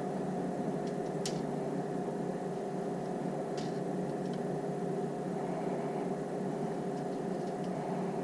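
Cooling fans of a battery spot welder running with a steady hum, with a few faint light clicks.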